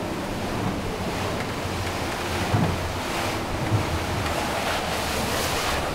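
Boat running fast on open water: steady rushing of wind over the microphone and water past the hull, over the low drone of a 42-foot Freeman catamaran's four Yamaha outboards at cruising speed. A couple of brief louder thumps come about a second apart midway.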